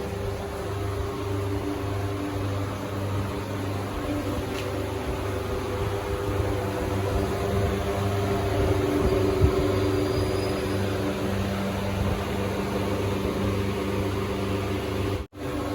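Boat engine running at a steady, even drone, cutting out for a moment just before the end.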